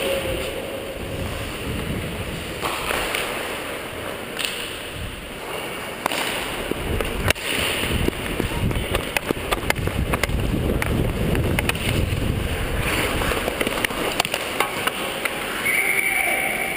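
Ice hockey play heard from a skater's worn camera: skates on the ice and air rushing over the microphone make a rough, steady rumble. Sticks and puck give sharp clicks and clacks that grow frequent from about halfway, one hit much the loudest, and a short high tone sounds near the end.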